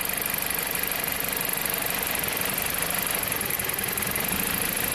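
A 2007 Jeep Compass four-cylinder engine idling steadily. The engine has an intermittent cylinder 1 misfire, set off when the ignition coil harness is disturbed, where a break in the green coil #1 control wire is suspected.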